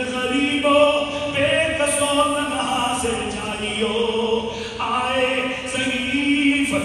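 Slow melodic vocal chanting with long held notes that move from pitch to pitch about once a second.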